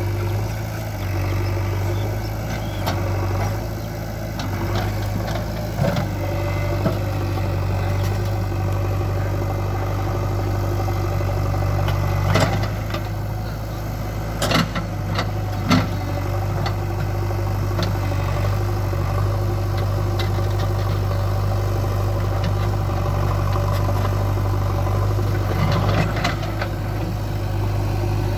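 JCB 3DX backhoe loader's diesel engine running steadily, with a few sharp metallic knocks about midway through.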